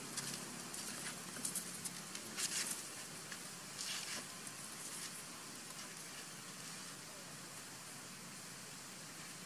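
Macaques scuffling on dry leaf litter: a run of short crackling rustles through the first few seconds, then a steady background hiss.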